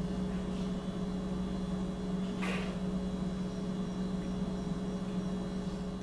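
Consul Biplex 300 refrigerator running with a steady hum, its compressor working again after the faulty control-board relay was replaced. A brief rustle comes about two and a half seconds in.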